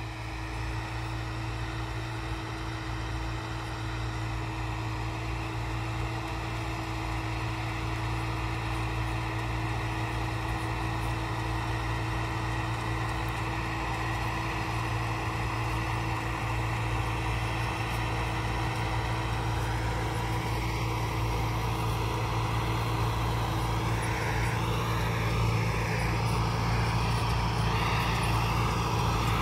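Tractor engine working steadily under load while pulling a 9-foot PDC super seeder through tilled soil, a constant drone that grows slowly louder as the tractor comes closer.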